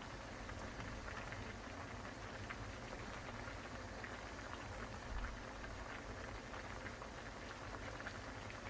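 Water boiling in a pot on a gas stove with soaked dried bracken fern in it: steady bubbling with many small pops, over a low steady rumble, with one low bump about five seconds in.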